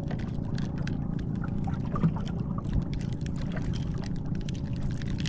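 Water lapping and splashing against the hull of a small boat, with many quick little slaps and ticks over a steady low rumble.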